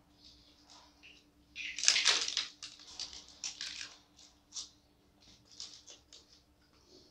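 Eating fried chicken: a loud, dense crunching burst about two seconds in, then scattered small crunches and clicks of chewing.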